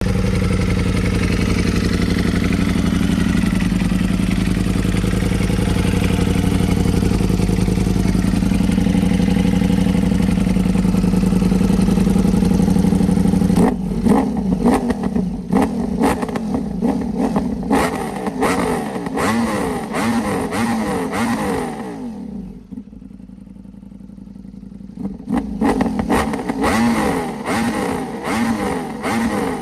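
Ducati motorcycle engine running at a steady speed for about fourteen seconds, then revved in repeated quick throttle blips, the pitch rising and falling with each. It eases back for a few seconds and is blipped again near the end.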